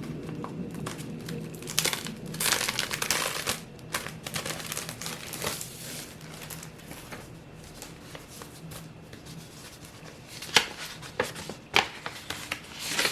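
Paper envelope crinkling and rustling as it is handled and opened by hand, heaviest for a couple of seconds near the start, then a few sharp taps or snaps near the end.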